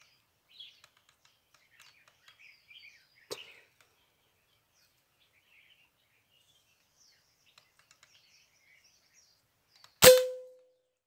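A PCP air rifle fires once near the end: a sharp crack, followed by a short ringing tone that dies away. Faint bird chirps sound before the shot.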